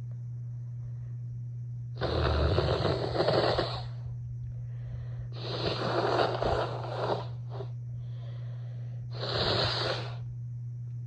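A person blowing their nose three times: long noisy blasts of one to two seconds each, the last the shortest, over a steady low hum. The blowing comes amid a run of dust-allergy sneezing.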